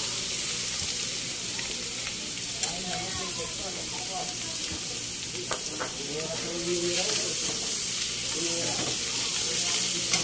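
Pork, garlic, onions and fresh shrimp paste (bagoong alamang) sizzling in a hot pan as a metal spatula stirs them, with a couple of sharp taps of the spatula against the pan.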